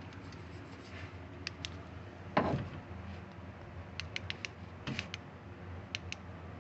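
Small clicks and taps of parts being handled in a car door, with one louder knock about two and a half seconds in.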